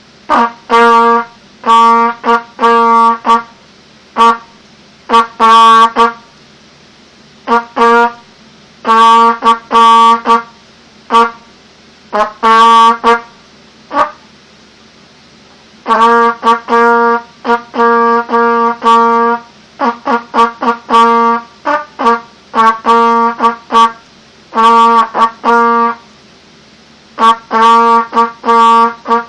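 Mendini trumpet sounding Morse code: short and long notes on one unchanging pitch, in groups separated by pauses.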